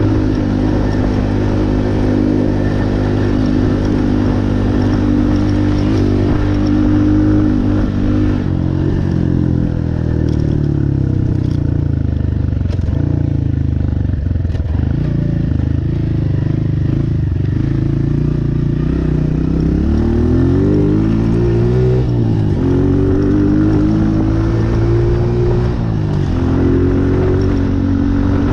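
Honda CRF125F Big Wheel's single-cylinder four-stroke engine running while being ridden, holding steady revs at first, then revving up and down repeatedly from about eight seconds in as the throttle is worked.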